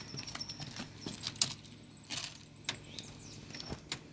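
Scattered light clicks and rattles from a wheel with a hydraulic disc brake being handled, irregular and not in a steady rhythm.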